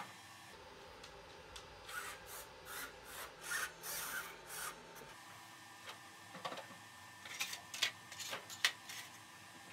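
Hands handling a 3D-printed plastic model airplane: faint rubbing and scraping of fingers against the printed airframe, a string of short scratches, then a few light clicks near the end.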